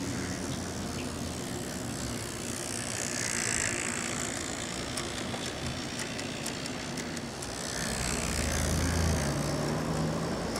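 G-scale model diesel train running on garden railway track: a steady whir from the locomotive's motor and the wheels on the rails, swelling twice as the cars pass close, with light clicking from the wheels on the track in the second half.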